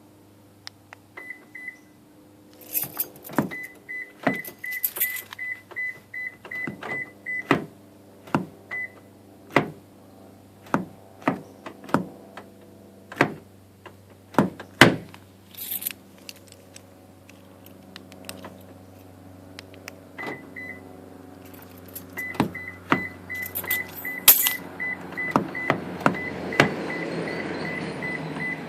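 A Toyota Prius's door lock clicking over and over, about once a second, a sign of the door lock fault. Twice a run of quick high beeps from the car sounds, and keys jangle now and then.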